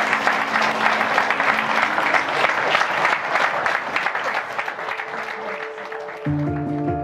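A crowd of guests applauding, with quiet instrumental music underneath. The clapping thins out and fades, and new instrumental music with sustained notes comes in near the end.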